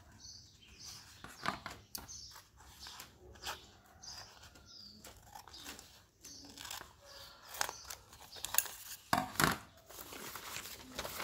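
Sheets of craft paper rustling and crinkling as they are handled, with scissors snipping through the paper. The sound comes as a string of short crackles and clicks, busiest a little after the middle.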